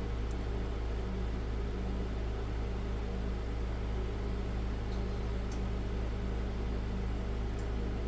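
Steady electrical hum with a fan-like hiss, joined by a few faint, isolated clicks.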